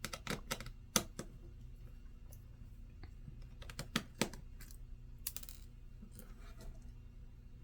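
Scattered light clicks and taps of small screws and laptop parts being handled and set down, some in quick clusters.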